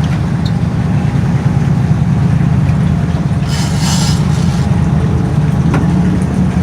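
Engine running with a steady low drone, with a brief hissing rush about three and a half seconds in.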